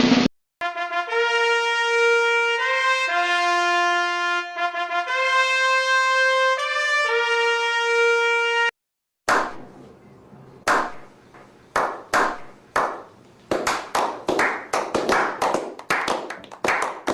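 A brass fanfare played as a sound effect: a trumpet-like melody of held notes lasting about eight seconds. After a short gap comes a run of irregular sharp claps that grow more frequent toward the end.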